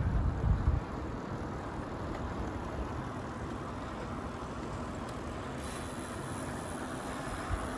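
Wind rumbling on a moving microphone, in heavy buffets for about the first second, then a steady rush of wind and road noise.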